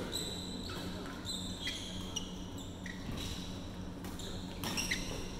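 Badminton rally: sports shoes squeaking repeatedly on the court mat, with sharp racket strikes on the shuttlecock, over a steady low hum in a large hall.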